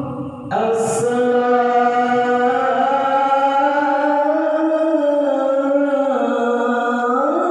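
A single voice singing vocal-practice phrases unaccompanied, in long held notes whose pitch slowly bends up and down. There is a brief break with a sharp consonant about half a second in.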